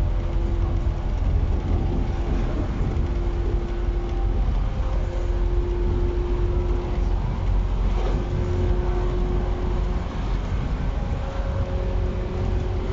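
JR East 115-series electric train standing at a platform with its doors open, its onboard equipment running steadily: a deep rumble with faint humming tones that shift in pitch every few seconds. A faint click about eight seconds in.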